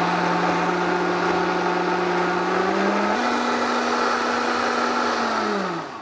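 Vitamix blender motor running at high speed, blending a thick squash sauce. Its pitch steps up about three seconds in as the speed dial is raised, then it is switched off and spins down near the end.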